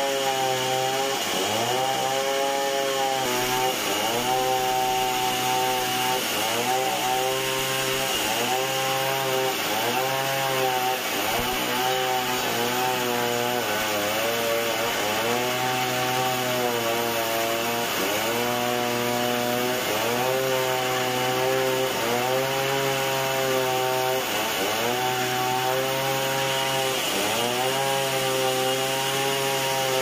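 Large sawmill band saw cutting lengthwise through a timber beam, running steadily with its pitch sagging and recovering every second or two.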